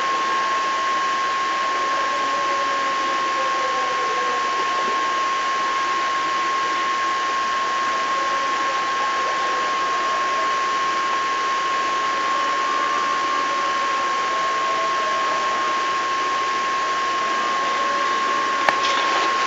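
Steady hiss of a noisy recording with a constant high-pitched whine. Faint drawn-out calls that slide in pitch lie underneath, and there is a sharp click near the end.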